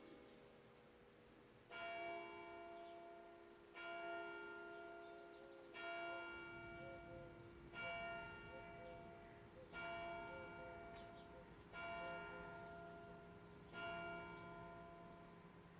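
Faint church bell tolling: seven slow strokes about two seconds apart, each ringing on and fading before the next.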